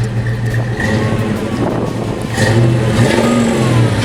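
Ford Fox-body Mustang's 5.0 V8 running with a steady low note, getting a little louder with a light rev about two seconds in.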